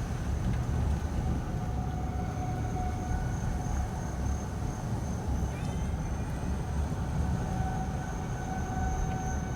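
Car engine and tyre noise heard from inside the cabin while driving, a steady low rumble. A faint steady high tone runs through it.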